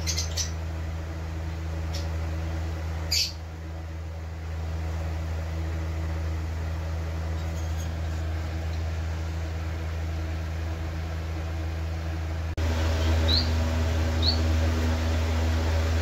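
Caged lovebirds giving a few short, sharp chirps, then three quick rising chirps near the end, over a steady low hum.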